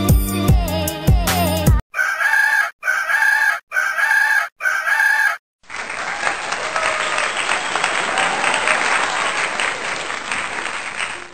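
Background music stops about two seconds in. A rooster crowing sound effect follows, four short identical crows in quick succession. Then a crowd applauds steadily for about six seconds.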